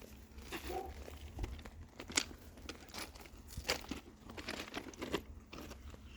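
Irregular crunching and rustling, a few sharp clicks or crunches a second or so apart, over a low rumble.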